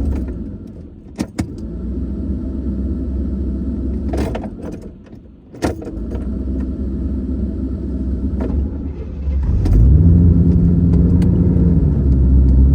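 1985 Corvette's 5.7-litre V8 running, with a few sharp clicks and rattles. About ten seconds in the engine revs up and holds a higher pitch for a couple of seconds.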